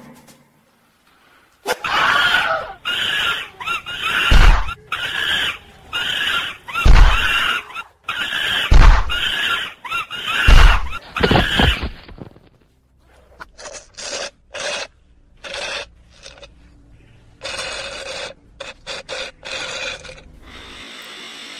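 Dubbed-in sound effects for a vampire attack: a run of loud, high-pitched squealing cries, about ten in all, with four heavy thuds among them. After that come many short, choppy, noisy sounds.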